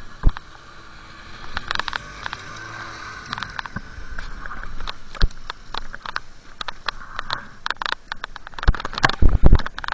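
A snowmobile engine running with a steady drone, its pitch wavering a little early on. Over it come many clicks and scrapes as gloved hands work at snowboard bindings, with a cluster of heavy thumps near the end.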